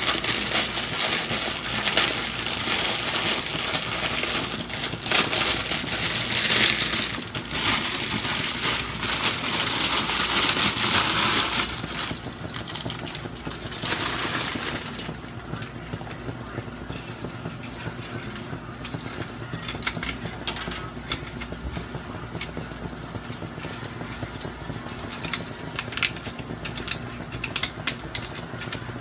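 Plastic packaging crinkling loudly as fresh canton noodles are pulled out and dropped into a wok, for about the first half. Then, from about fifteen seconds in, quieter scattered clicks and scrapes as a wooden spatula tosses the noodles in the wok.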